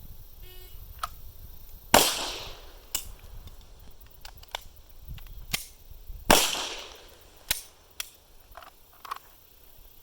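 Two pistol shots from a 9mm Beretta 92, about four seconds apart, each ringing out briefly. Between and after them come lighter metallic clicks and clacks of the reload being worked.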